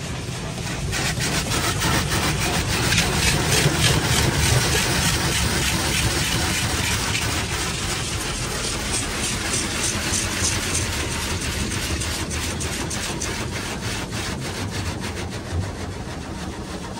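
Futura Revolution touchless car wash's high-pressure rinse: the rapidly oscillating sprayers sweep water jets back and forth across the car, a steady rush of spray made of many quick strokes with a low rumble beneath, heard from inside the cabin. It swells loudest about three to five seconds in, and does not sound especially powerful.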